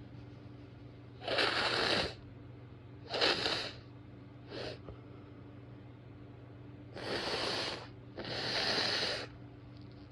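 A woman blowing her nose in a series of breathy blasts: two in the first few seconds, a short weaker one around the middle, then two longer ones near the end.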